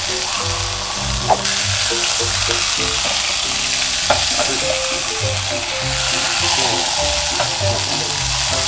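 Cod steak sizzling steadily as it pan-fries in hot oil, with a wooden spatula tapping against the pan twice. Soft background music plays underneath.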